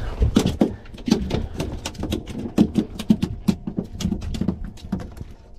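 A freshly caught yellowtail snapper flopping on a boat deck: a rapid, irregular run of slaps and taps that dies away near the end.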